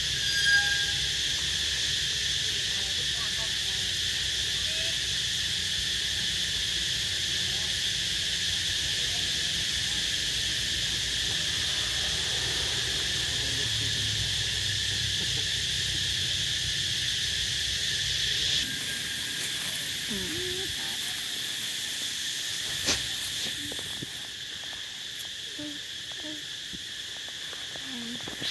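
Steady high-pitched drone of insects calling in the surrounding trees. A short squeak comes just after the start, and a single sharp click comes late on.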